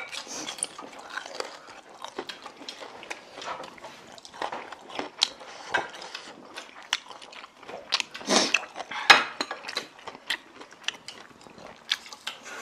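People eating noodles at a table: chewing and biting, with frequent small clicks of utensils against bowls and dishes.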